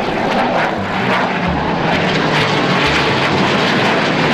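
Jet noise from a pair of twin-engine Chengdu J-20 stealth fighters flying a display pass: a steady, loud rushing noise.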